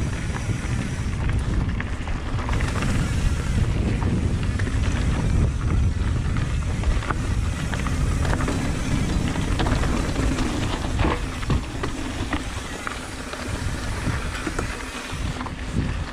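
Titanium singlespeed mountain bike riding down a dirt trail: wind rumbling on the microphone and tyres rolling over loose dirt and rock. Frequent short clicks and knocks come from the bike as it goes over bumps.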